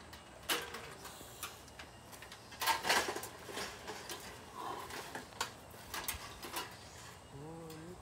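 A toaster oven being knocked about and broken apart: scattered knocks, clicks and rattles of hard parts, the loudest cluster about three seconds in. Near the end, a short wavering voice-like sound.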